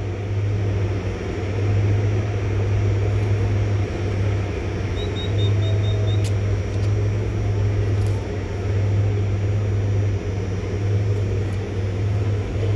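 An old pickup truck's engine idling with a steady low hum.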